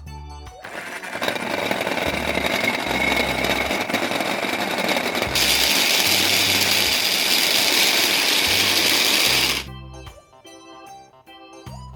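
Blender running for about nine seconds, turning harsher and louder about halfway through, then cutting off suddenly, over background music.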